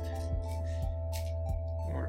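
Background music: held notes over a soft, regular beat.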